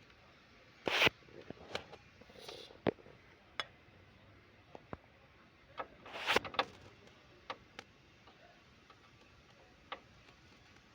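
Scattered clicks and light knocks of hand tools and metal and plastic parts being handled, at an uneven pace, with two louder scraping noises about a second in and about six seconds in.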